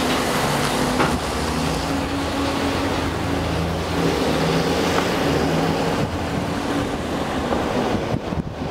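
Car engine and road noise heard from inside a car driving slowly through traffic, the engine note shifting as it changes speed.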